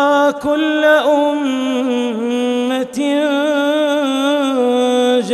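A man reciting the Quran in a slow melodic chant, holding long notes with wavering, ornamented pitch and brief breaks about half a second and three seconds in.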